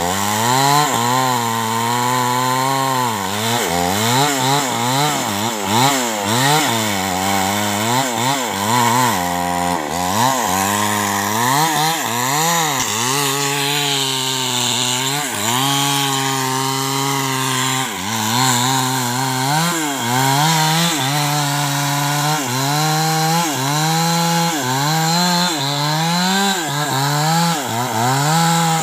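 Small two-stroke chainsaw cutting into the trunk of a large albizia tree. Its engine pitch rises and falls over and over as the chain works in the cut.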